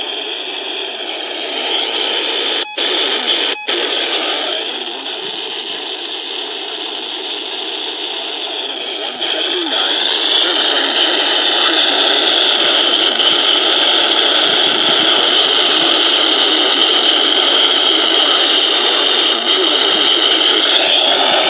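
Radio static: a steady hiss from a radio receiver whose signal has faded too far to carry the broadcast voice. It cuts out briefly twice about three seconds in and grows louder about ten seconds in.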